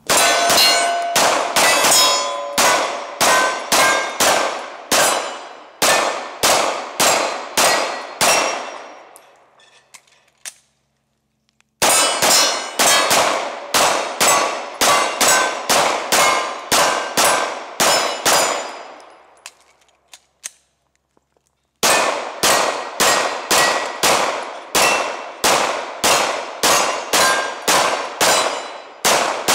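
Glock 19 9mm pistol fired in three long, rapid strings of shots, each shot followed by the ringing clang of steel targets being hit. Each string dies away in ringing, followed by a brief silence before the next.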